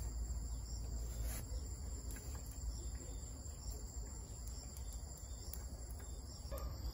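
A steady high-pitched insect chorus chirring over a low rumble, with a few faint knocks as lumps of lychee-wood charcoal are set into a small barrel stove with tongs.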